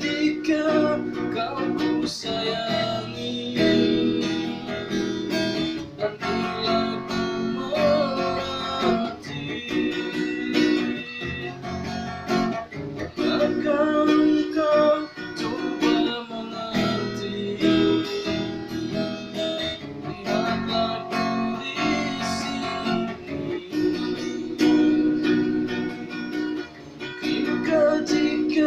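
Acoustic guitar playing an instrumental passage of a song, plucked and strummed chords with fresh attacks every second or so.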